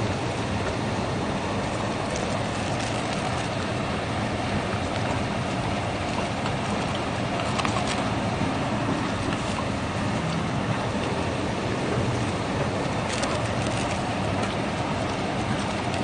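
Pork belly sizzling steadily on a griddle over a portable butane stove, under a constant rumble of wind and sea.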